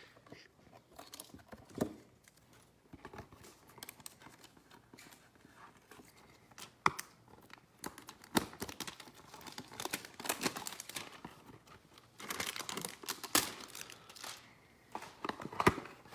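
Plastic wrapping of trading-card packs being torn open and crinkled, with irregular crackles and light clicks from handling. The crinkling is densest a little past the middle.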